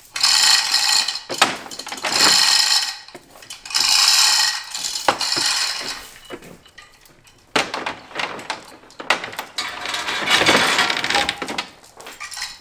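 Metal ratcheting and clinking in bursts of one to two seconds, with a longer, more broken-up stretch in the second half.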